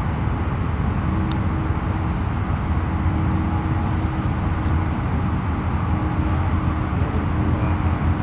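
Steady low outdoor rumble, with a faint steady hum through most of it. A single light click about a second in, where the putter strikes the golf ball.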